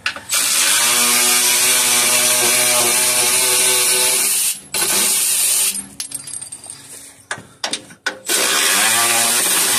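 Cordless electric ratchet spinning out the 13 mm bolts of a truck's front skid plate: one steady motor whine of about four seconds, a few short bursts and clicks, then another long run that begins about eight seconds in, each run spinning up in pitch at its start.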